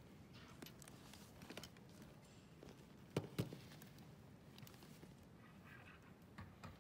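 Near-silent room tone of a quiet study hall, with faint scattered clicks and two sharper knocks in quick succession about three seconds in.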